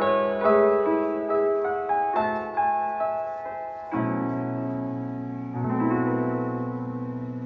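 Piano music: a melody of single notes over lower chords, then two sustained chords struck about four and five and a half seconds in that fade away.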